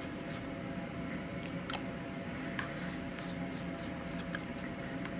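A metal spoon scraping and clicking against a plastic pudding cup, with soft eating sounds, a few scattered sharp clicks over a steady low background hum.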